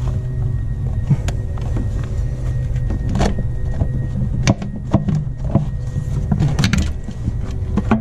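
Scattered clicks and knocks of hand tools and plastic parts as the intake duct is worked loose from a pickup truck's engine, over a steady low hum.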